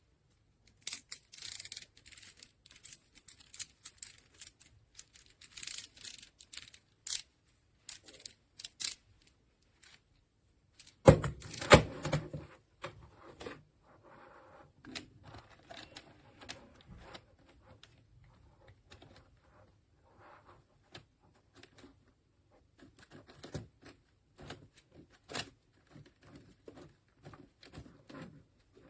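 Close handling noises: scattered sharp clicks and rustles, with a couple of louder thumps about eleven seconds in.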